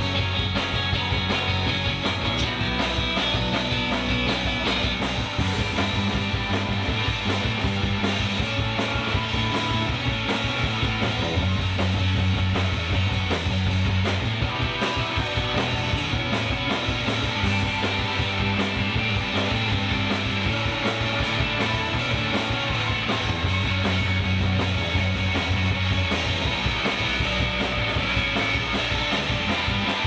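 Live rock band playing with a steady drum beat: electric guitar, electric bass guitar and trumpet over a drum kit.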